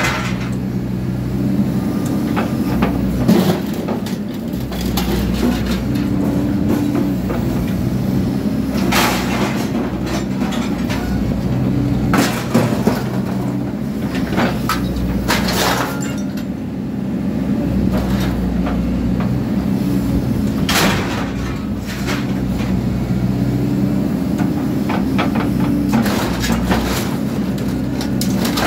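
Hydraulic excavator's diesel engine running steadily, its pitch shifting with hydraulic load, as the demolition shear attachment cuts and crushes scrap metal roo bars. Several sharp metallic cracks and clanks come through when the jaws bite through the metal.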